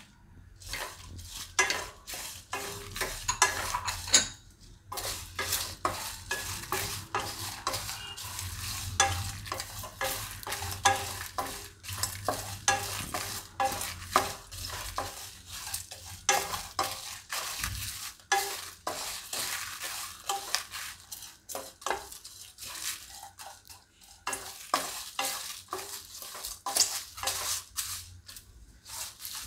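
Wooden spatula stirring and scraping dry whole spices and grated coconut around a kadai as they dry-roast without oil: a steady run of irregular rattling scrapes.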